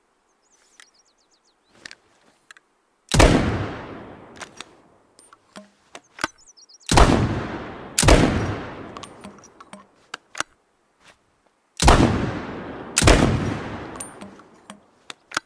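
Double-barrelled shotgun blasts, each with a long echoing decay: a single shot about three seconds in, then two pairs of shots about a second apart. Small clicks come between the shots.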